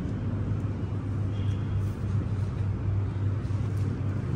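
Steady low droning hum over an even background hiss, with no distinct events.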